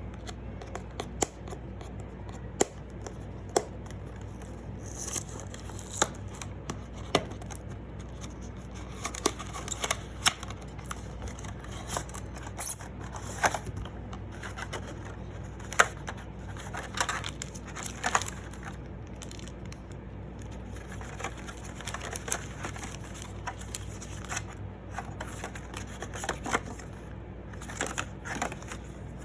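Scattered clicks, taps and short rustles of cardboard and plastic packaging being handled and opened, over a steady low hum.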